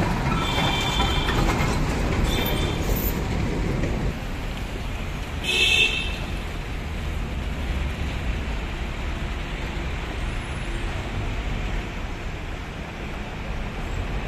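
Heavy diesel traffic: a dump truck's engine rumbles loudly as it passes in the first four seconds, then a steadier, quieter engine rumble continues as a tractor pulling a loaded trailer approaches. Vehicle horns toot briefly a few times, the loudest about six seconds in.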